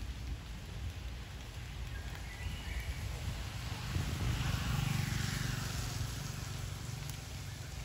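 Outdoor ambience with a steady low rumble that swells for a couple of seconds about four seconds in, and a few faint short high squeaks about two seconds in.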